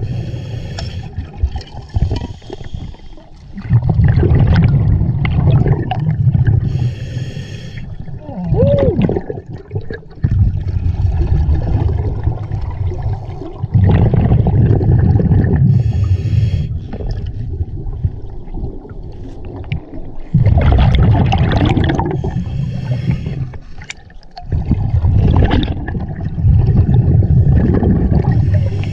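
Scuba diver breathing through a regulator underwater: short hissing inhalations alternate with longer spells of low, rumbling exhaled bubbles, several breaths in a row.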